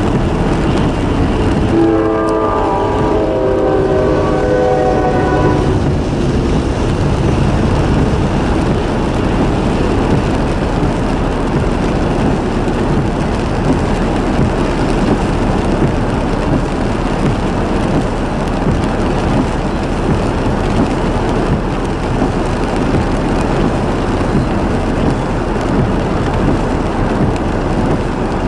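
Norfolk Southern locomotive's multi-chime air horn sounding as a chord of several notes, stopping about six seconds in. It is followed by the steady, loud rumble of the train passing on the rails.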